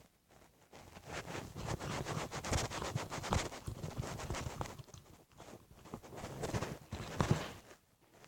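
Spoon stirring thick, sticky glue slime in a container, a rapid run of clicks and taps as the spoon knocks and scrapes against the sides and works the wet mass. The stirring eases briefly about five seconds in and stops near the end.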